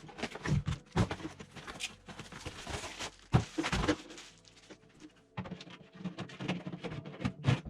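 Unpacking sounds: irregular knocks, clicks and rustling of packaging, with a longer rustle about two to three seconds in.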